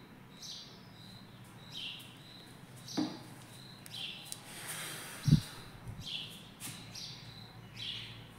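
A bird chirping over and over, a short call about every second or so. There is a sharp click about three seconds in and a loud low thump a little past the middle.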